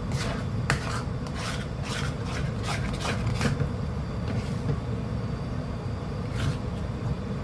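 A stirring utensil scraping and rubbing through thick, sticky glutinous-rice calamay mixture in the cooking pot, in strokes about three a second that thin out after about four seconds. A steady low rumble runs underneath.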